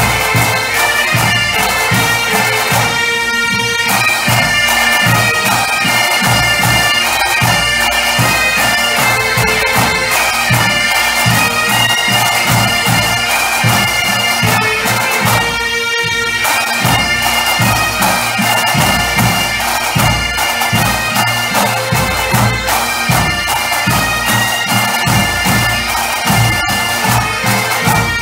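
A massed band of gaitas, northern Spanish bagpipes, playing a tune over their steady drones, with drums keeping a regular beat underneath.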